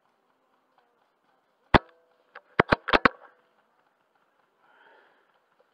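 Airsoft bolt-action sniper rifle, a Wolverine Bolt-M HPA/CO2 engine in an Ares AS02, firing a single sharp shot, followed under a second later by a quick run of metallic clacks as the bolt is cycled.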